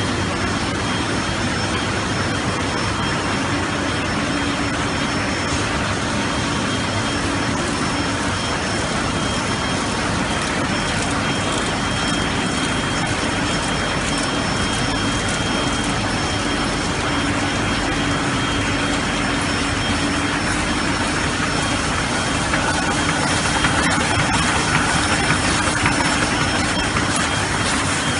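Heidelberg Speedmaster CD 102-5+L five-colour sheetfed offset press with coating unit running: a dense, steady mechanical din with a few constant whining tones, growing louder for a few seconds near the end.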